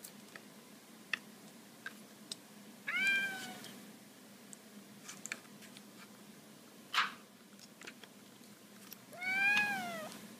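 A house cat meowing twice, each meow rising then falling in pitch, about three seconds in and again near the end. In between come light clicks and one sharp snap about seven seconds in, from the plastic back cover of a tablet being pried open with a knife.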